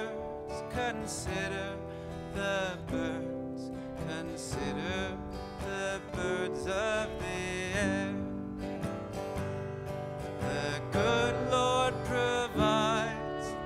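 Acoustic guitar music with a wavering melody line over sustained chords.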